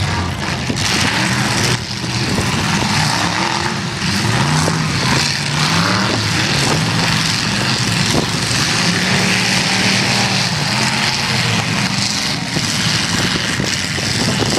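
Demolition derby cars' engines revving up and down together, pitch rising and falling as they accelerate, over a continuous wash of noise.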